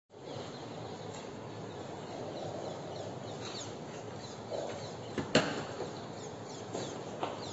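Steady background room noise with a few faint, short, high chirps now and then, and one sharp knock a little over five seconds in.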